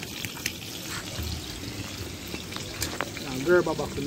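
Cooking oil sizzling in a metal pan over a wood fire, a steady hiss with scattered small crackles. A short voice-like call sounds about three and a half seconds in.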